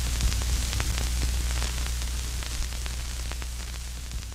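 Static hiss with scattered crackles over a steady low hum, slowly fading toward the end.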